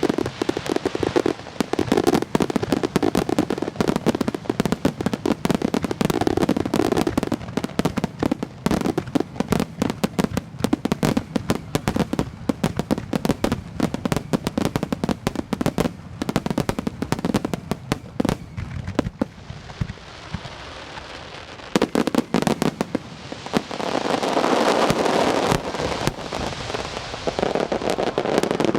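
Star mine fireworks barrage: a rapid, dense string of shell bursts and crackling pops. It thins out about two-thirds of the way through, then swells into a thick continuous roar of bursts that stops abruptly at the end.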